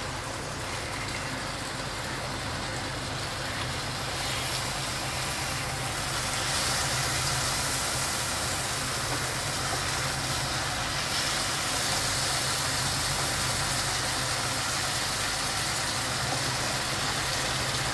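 Rui fish steaks sizzling as they fry in ghee and mustard oil in a kadai, turned over with a wooden spatula; the sizzle grows a little louder after about four seconds. A steady low hum runs underneath.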